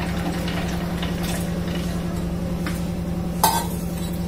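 Water poured from a steel bowl into a plastic blender jar of butter and ice, then a single sharp metallic clink with a short ring about three and a half seconds in as the steel bowl is set down, over a steady low hum.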